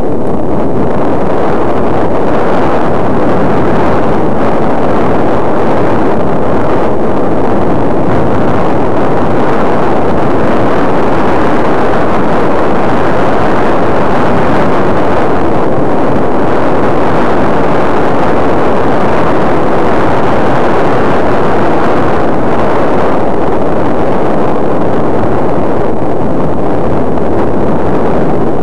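Loud, steady wind rush on the microphone of a glasses-mounted camera worn while riding a bicycle, a constant even noise with no separate events.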